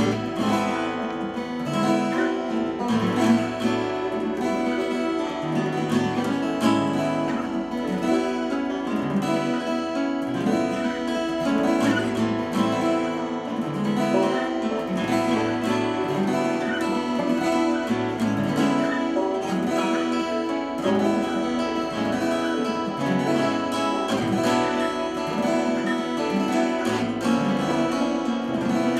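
Three acoustic guitars strumming and picking a minor-key instrumental tune together, with a steady rhythm and changing bass notes.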